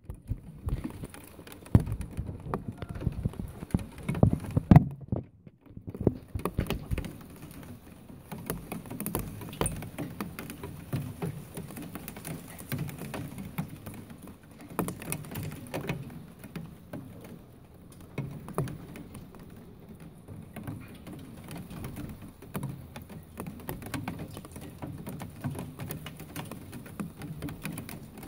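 Rain pattering on a hard surface: a dense, irregular run of small taps, easing briefly about five seconds in.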